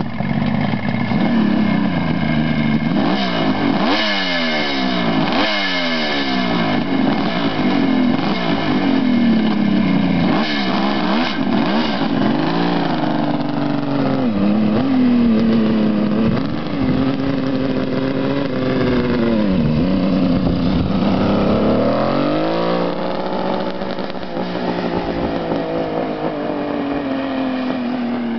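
1972 Kawasaki H2 750's two-stroke three-cylinder engine starting up, then revved in a run of quick blips that rise and fall. Later it revs up as the bike pulls away, and its note drops and slowly fades as it rides off.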